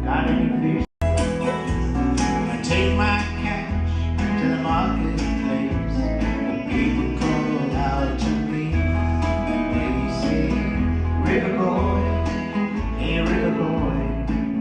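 Background music: an upbeat country-style song with acoustic guitar, bass and a voice singing. It cuts out for a split second about a second in.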